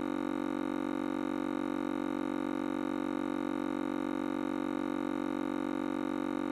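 A steady, unchanging low drone tone with many overtones, holding the same pitch and loudness throughout.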